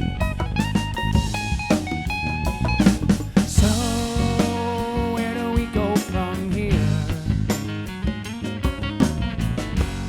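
Live band playing an instrumental break: guitar over a drum beat.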